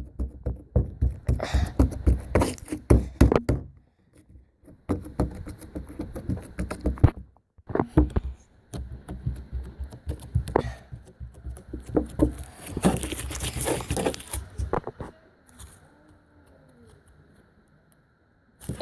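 Hands working slime for ASMR, pressing and poking it into a square, making a run of quick wet clicks and taps in bursts with short pauses. It goes quieter near the end.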